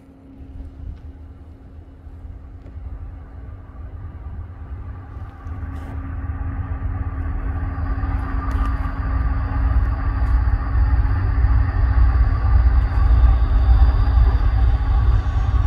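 Norfolk Southern freight train's diesel locomotives approaching: a deep engine rumble growing steadily louder, with a steady hum, and a faint high whine joining about halfway through.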